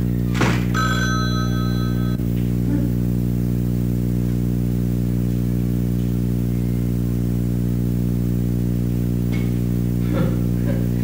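A loud, steady low buzz, like electrical hum on an old soundtrack. About a second in, a brief high ringing of a few tones joins it and stops suddenly after about a second and a half.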